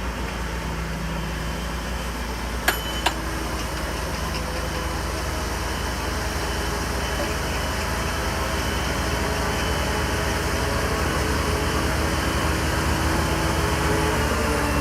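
Heavy diesel engine of earthmoving machinery running steadily, slowly growing louder, with two sharp clicks about three seconds in.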